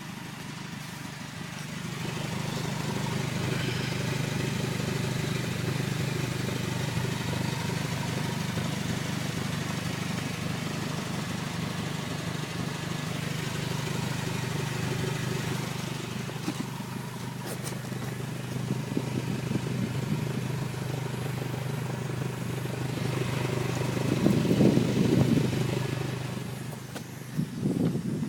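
2003 Honda Civic Si's four-cylinder engine running steadily with an exhaust leak. It swells louder for a moment about 24 seconds in.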